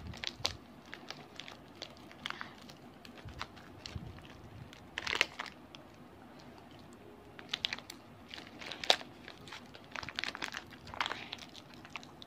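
Plastic packet crinkling and crackling in short, irregular bursts as it is worked and pulled at by hand to get it open.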